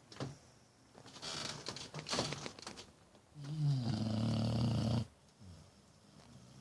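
Snoring during sleep: two noisy breaths, then one loud, low, rattling snore lasting nearly two seconds about three and a half seconds in, followed by quieter breathing.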